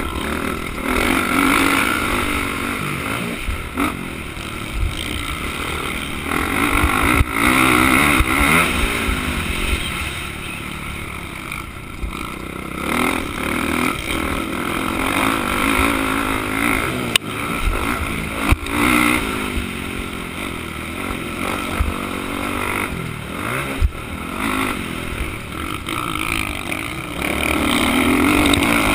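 Motocross dirt bike engine being raced, revving up and falling off again and again through the turns and straights, with wind rumbling on the helmet-mounted microphone. A few sharp knocks are heard in the second half, likely from the bike hitting bumps.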